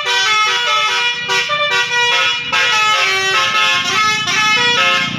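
Basuri telolet bus horn, a multi-trumpet air horn, playing a quick tune of stepping notes one after another without a break, loud, with a low rumble beneath that grows toward the end.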